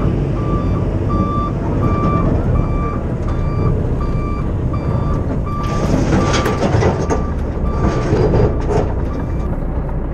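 Heavy truck's backup alarm beeping at an even, quick pace over the low, steady running of the diesel rig as the lowboy manoeuvres. In the second half a few seconds of hissing, crackling noise come up over it.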